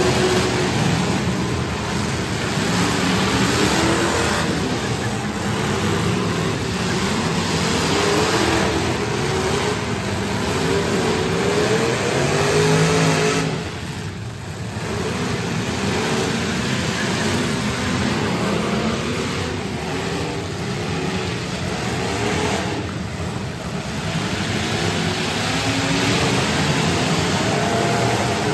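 Several demolition derby cars' engines running and revving at once, their pitches rising and falling as they drive and ram each other on a dirt track. The loudness dips briefly about halfway through.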